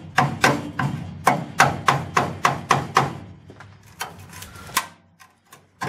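Hammer blows driving a sharpened chisel into the steel of a car's front body structure, about three sharp metallic strikes a second, then a few lighter taps, stopping about five seconds in.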